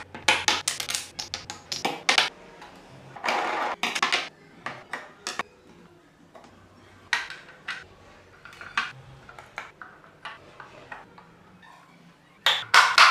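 Irregular sharp clicks and taps with a scrape of about a second, from small wooden and rubber model-car parts being handled and fitted on a tabletop: tyres set down, wheels and pieces pushed onto a wooden car body, and a clear windscreen pressed into place with a loud flurry of clicks near the end.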